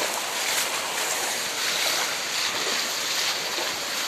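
Muddy flash-flood water rushing over a road surface: a steady, even hiss of fast-flowing water.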